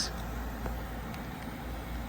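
Steady low hum with faint background noise, broken by two faint ticks about two-thirds of a second and a second in.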